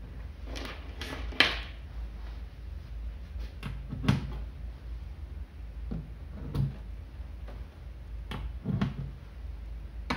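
Banana-plug patch leads being handled and pushed into the sockets of a relay sequence-control trainer panel: a brief rustle of the leads near the start, then scattered knocks and clicks, two close together near the end.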